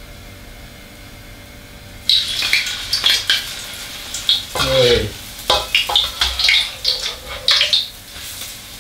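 Wontons deep-frying in hot oil in a wok, starting suddenly about two seconds in with loud sizzling and crackling, as the wontons go into the oil. A metal strainer ladle scrapes and clinks against the wok as it stirs them.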